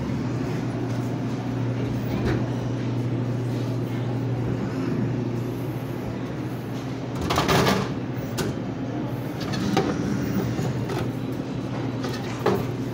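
Dixie Narco Bev-Max 4 vending machine vending a bottle over a steady machine hum, with a loud clatter about seven and a half seconds in as the bottle reaches the delivery port. A shorter knock near the end as the delivery door is opened.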